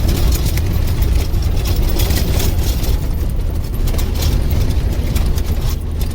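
Mitsubishi Canter 4x4 truck driving over a badly corrugated dirt road: a steady low engine and road rumble under constant clattering and rattling as the truck shakes over the ridges. The rattling thins out a little about halfway through.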